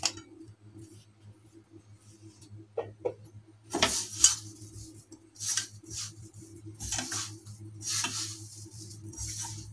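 A hand mixing and pressing a crumbly coconut and milk-powder mixture in a nonstick pan: fingers scraping it against the pan in short swishes, about one a second, starting about four seconds in. A low steady hum lies underneath.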